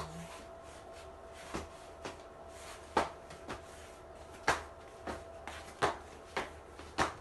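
Rollator walker knocking and clacking on the floor as it is pushed along in short steps: sharp irregular knocks about every half second to a second.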